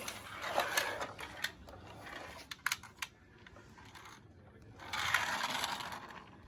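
Scattered light clicks and knocks of small toy vehicles being handled, with a brief soft rustle about five seconds in.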